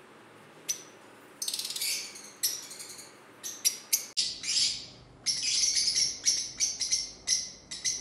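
Lovebirds chirping: shrill, high chirps in quick runs, starting about a second in, sparse at first and coming thick and fast over the last few seconds.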